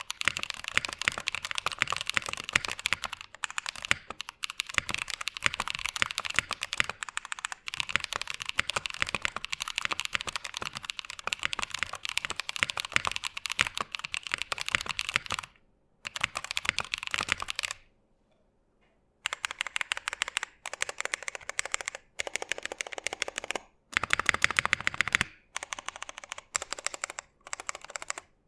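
Typing on a Tofu65 aluminium-case mechanical keyboard with lubed Drop Holy Panda tactile switches and lubed Durock stabilizers, with no sound dampening. Key clacks run densely for about fifteen seconds, then come in shorter bursts of typing broken by brief pauses, one lasting about a second and a half.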